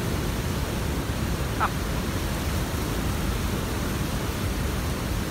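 Steady rushing of a large waterfall's rapids, an even roar. A brief high squeak rises about one and a half seconds in.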